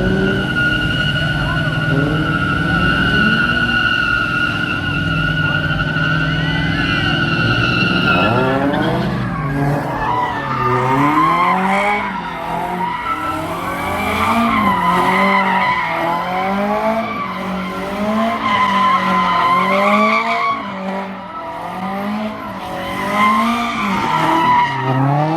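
A car's tyres squealing in a burnout with the engine held at high revs. A little over eight seconds in, the steady squeal gives way to engine revs and tyre squeal rising and falling about once a second, as in a car spinning donuts.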